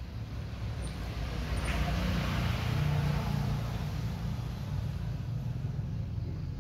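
A motor vehicle passing: a rushing noise swells to its loudest about three seconds in and then fades, over a steady low rumble.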